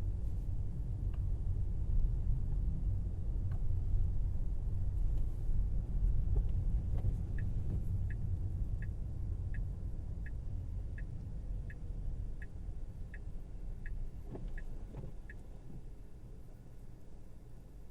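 Low road and tyre rumble inside a Tesla Model Y cabin on a snowy road, fading over the last few seconds as the car slows. From about seven seconds in, a dozen evenly spaced ticks come roughly three every two seconds, in the pattern of a turn-signal indicator.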